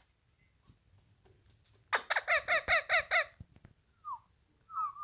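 Rose-ringed (Indian ringneck) parakeet calling. After a couple of seconds of faint ticking it gives a rapid run of about eight short, sharp repeated notes, then a single short falling note and a wavering whistle near the end.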